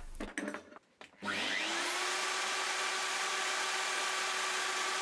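DeWalt plunge router switched on about a second in: the motor spins up with a rising whine and then runs steadily at full speed.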